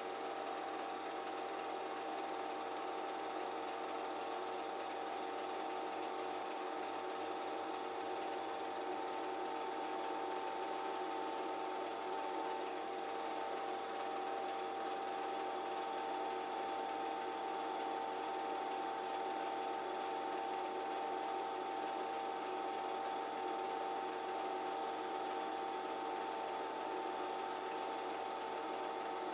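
Home-movie film projector running steadily: a constant mechanical whir from its motor and film transport, with a steady high-pitched hum running through it.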